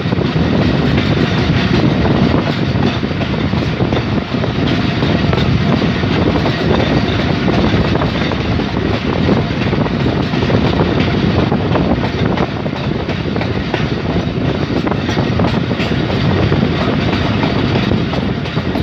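Passenger train running through a junction at speed: a steady loud rumble of steel wheels on rail, with scattered clicks as the wheels cross rail joints and points.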